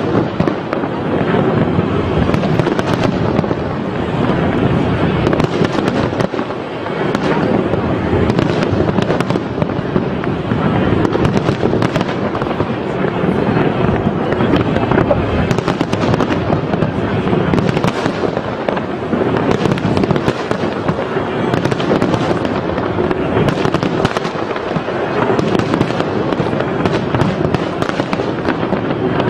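Aerial fireworks display: a dense, unbroken barrage of shells bursting, with constant bangs and crackling.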